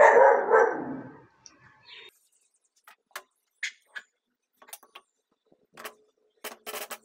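A dog barking two or three times at the start, followed by scattered light clicks and taps.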